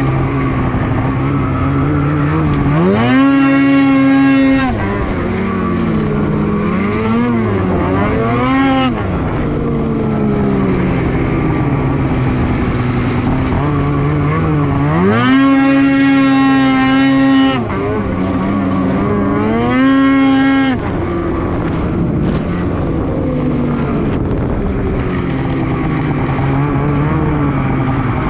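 Polaris Switchback Assault 850 snowmobile's two-stroke twin engine running at speed, revving up sharply and holding high twice, about three seconds in and again about fifteen seconds in, with shorter throttle rises in between.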